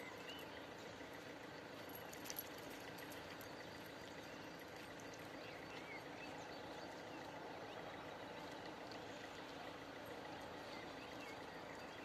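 Railway level-crossing warning bell ringing steadily and faintly, signalling an approaching train, with small birds chirping now and then and a single click about two seconds in.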